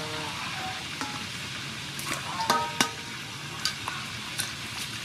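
Water splashing and swishing as hands wash cucumbers and mint leaves in a stainless steel bowl, with scattered small clicks. Two sharp clinks with a brief metallic ring come about two and a half seconds in.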